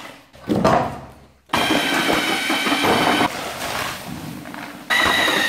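Water splashing into a mortar bucket, then about a second and a half in an electric drill with a mixing paddle starts up and runs, stirring tile adhesive as the powder is poured in. Its motor whine gets louder near the end.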